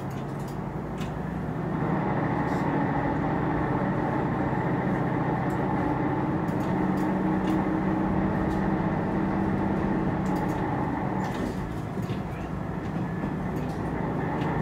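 Diesel railcar engine running under power as the train pulls away and gathers speed, heard from inside the cab: a steady drone that grows louder about two seconds in and then holds, with a few faint clicks above it.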